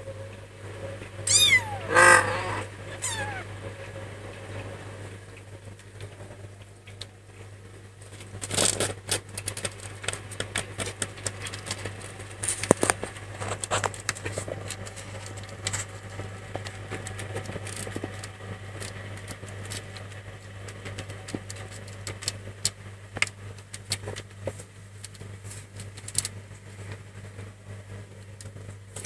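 Cats mewing in the nursing box: two loud high mews about a second and a half and two seconds in, and a fainter one at three seconds. After that come soft rustling and small clicks as the kittens squirm and jostle at the teats, with a louder rustle around nine seconds in, over a steady low hum.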